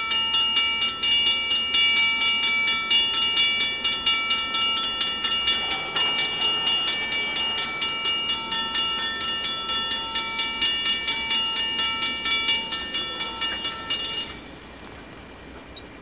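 Railroad grade-crossing warning bell ringing in rapid, even strikes, about four a second, over steady ringing tones; it starts suddenly and stops suddenly about fourteen seconds in, the crossing warning for an approaching train.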